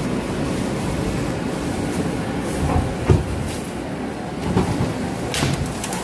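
New York City Subway J train heard from inside the car as it pulls into an elevated station: a steady rumble of wheels on the rails, with a few sharp knocks.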